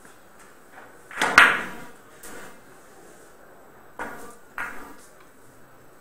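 Billiard cue striking the cue ball on a pocketless carom table about four seconds in, then the ivory-hard balls clicking together about half a second later. Earlier, about a second in, comes a sharper, louder knock with a lighter click soon after.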